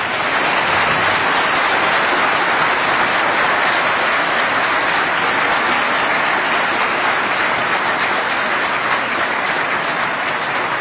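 Audience applauding, loud and steady, easing slightly near the end.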